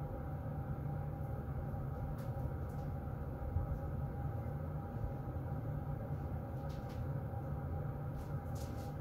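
Forced-air heater vent blowing: a steady low rumble of moving air with a faint, even hum above it and a few faint ticks.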